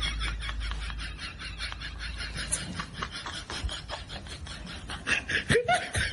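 Dry straw rustling and crackling as a stuffed straw sack is carried and heaved up and a man steps over a straw-covered yard, with a low rumble of wind on the microphone in the first few seconds.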